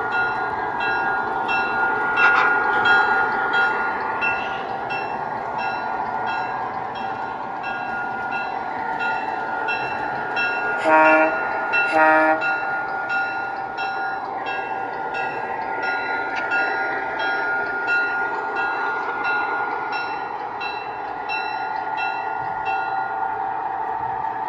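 G scale model diesel switcher running through the yard, with the steady engine drone of its sound system and regular clicking from the track. It gives two short horn toots, about a second apart, midway through.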